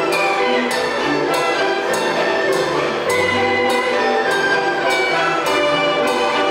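A children's Chinese orchestra playing a lively tune on plucked, bowed and struck strings, with a steady beat of strong strokes about every 0.6 seconds.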